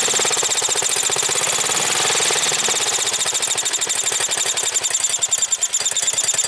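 Single-cylinder 11 hp Briggs & Stratton engine running steadily with a rapid, even firing beat, freshly started on a replacement carburetor.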